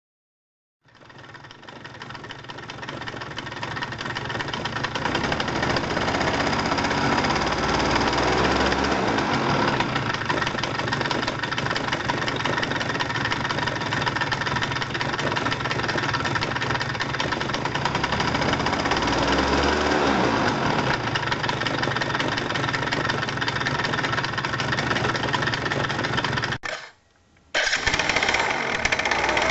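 Yamaha Grand Axis 100 scooter's two-stroke engine idling with a metallic clattering from the belt drive. A deformed mounting on the drive pulley face lets the face rattle at low revs, when the belt is slack. The engine note changes briefly twice, and the sound drops out for a moment near the end before resuming.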